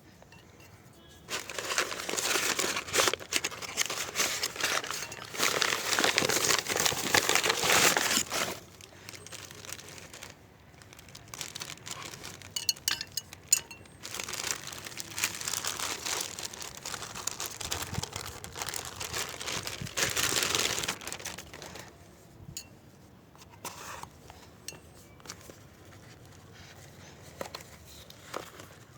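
Packaging being crumpled, crinkled and torn open by hand, in two long busy stretches with scattered clicks between them, then only occasional small crackles near the end.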